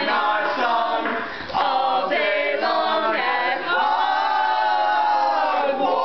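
A group of voices singing a cappella, in short phrases and then a long held chord through the second half.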